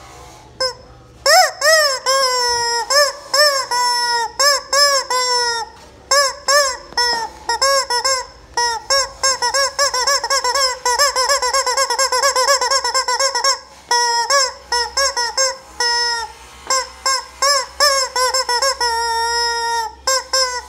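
Yellow rubber screaming chicken toy squeezed by hand over and over, giving a long string of loud squawks that each rise and fall in pitch, some short and some drawn out, with a fast run of them in the middle.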